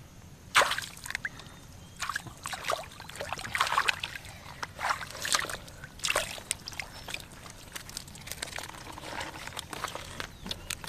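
Shallow water splashing and sloshing in irregular bursts as hands grope through it for fish, with a sharp splash about half a second in.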